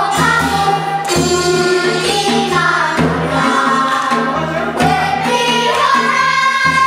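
Children's choir singing a Korean folk-style song in unison over instrumental accompaniment with a steady beat, settling into a long held note about five seconds in.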